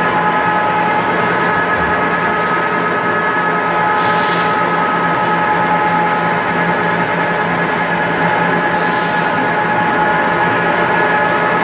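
Wood pellet mill and its pellet conveyors running: steady, loud machine noise with a constant low hum and several steady high tones. Two short hisses come about four and nine seconds in.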